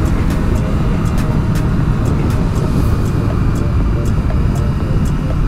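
Honda CB500X motorcycle cruising at a steady road speed: its parallel-twin engine runs steadily under a dense, even rumble of riding noise.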